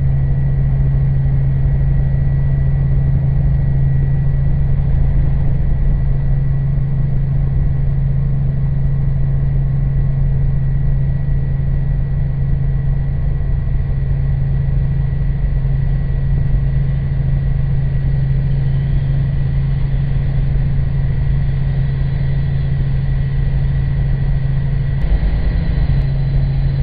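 Robinson R44 helicopter's engine and main rotor running in flight, heard inside the cockpit as a loud, steady drone with a constant low hum and rumble.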